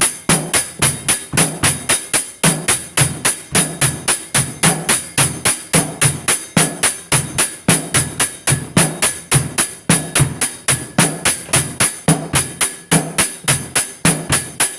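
Music: a fast, even percussive beat of about four to five sharp hits a second over a low bass line that shifts in pitch.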